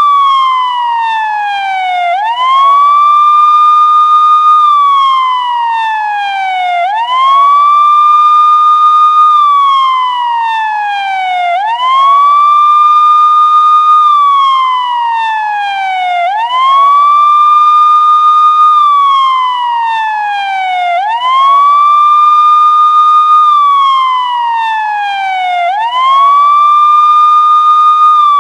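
Police siren on its wail setting: the tone sweeps up quickly, holds high for about two seconds, then slides slowly back down, repeating roughly every four and a half seconds.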